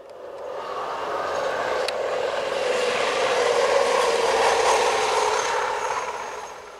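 Light hi-rail track inspection vehicle running along the railway line, a steady rolling rush that swells to its loudest about four to five seconds in and then fades away near the end.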